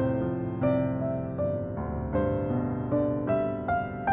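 Background piano music: a slow melody of held notes, changing about two or three times a second.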